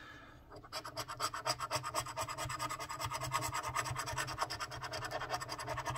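A coin scraping the latex coating off a scratch-off lottery ticket in quick back-and-forth strokes, about ten a second, starting about half a second in.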